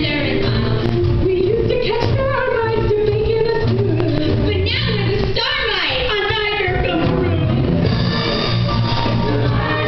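Female chorus singing a stage-musical number over a band with a steady drum beat.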